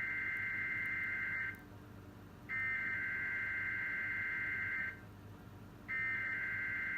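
Emergency Alert System data bursts (the SAME header) of a required weekly test, played through a television: a harsh two-tone digital screech. One burst ends about a second and a half in, a second follows after a one-second pause, and a third begins near the end, each lasting a little over two seconds.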